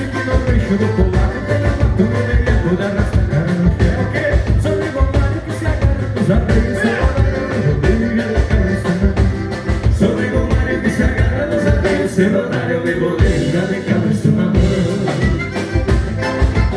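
Live gaúcho dance band playing a vanerão, with a steady drum beat and bass under the melody.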